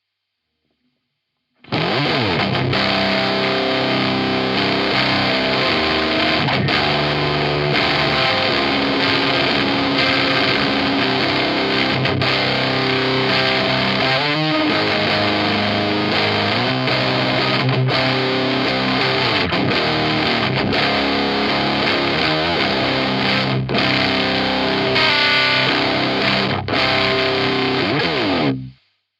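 Electric guitar played through a Zander Circuitry Terra Firma fuzz/distortion pedal: a heavily distorted riff of sustained chords and notes, on one of the pedal's rotary-switch clipping settings. The playing starts abruptly just under two seconds in and stops abruptly near the end.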